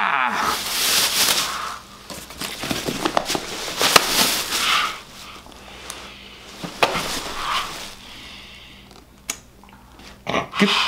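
Packaging being handled and torn open: a plastic bag and paper wrapping crinkling and rustling in irregular bursts, with scattered sharp crackles.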